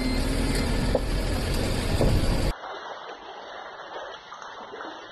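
Storm noise: loud wind and water noise with heavy low rumble buffeting the microphone, cut off abruptly about two and a half seconds in, leaving a much quieter, thin water-like hiss.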